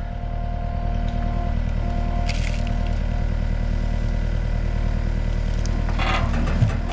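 A loader's engine running steadily while a log is lifted onto the trailer, with a short hiss about two seconds in and a brief scraping noise about six seconds in.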